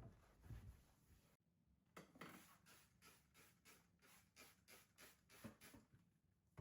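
Faint, quick scratchy rubbing strokes, about four or five a second, starting after a brief cut-out about a second and a half in.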